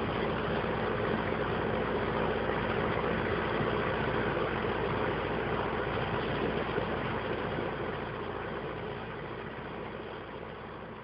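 Muddy floodwater rushing steadily, a dense continuous noise that grows fainter over the last few seconds.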